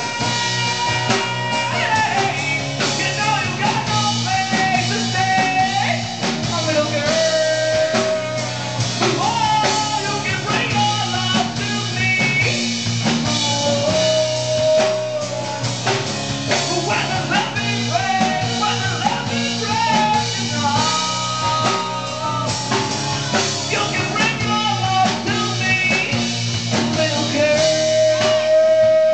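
Live band playing amplified music: electric guitars over a drum kit, with a held, bending melody line on top.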